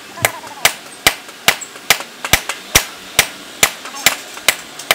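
Hammer blows ringing on red-hot leaf-spring steel against an anvil, a steady rhythm of about twelve sharp strikes, roughly two and a half a second, as a meat cleaver blade is forged to shape.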